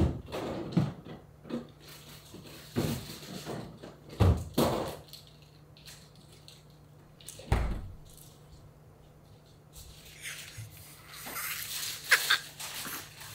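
Several sharp knocks and thuds, the loudest right at the start, then a small Pomeranian giving a few short barks near the end.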